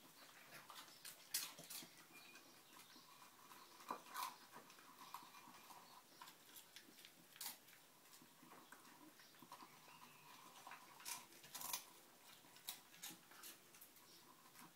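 Dog eating dry kibble from a bowl: faint, irregular crunching and sharp clicks of pellets against the bowl.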